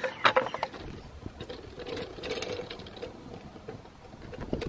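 Floor jack being set and worked under a car's frame: a few sharp clicks at the start, then scattered faint knocks over a low rumble.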